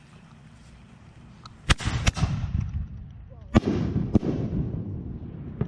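Aerial fireworks bursting overhead: four sharp bangs in two pairs, the first pair about two seconds in and the second about a second and a half later, each pair trailing off in a low rumble.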